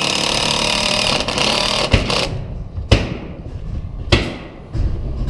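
Power drill driving a screw, its motor running steadily and stopping about two seconds in, followed by a few separate knocks.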